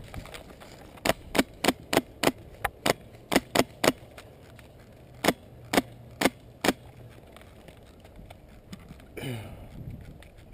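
Airsoft gun firing single shots as sharp cracks, about ten in quick succession at roughly three a second, then four more spaced further apart.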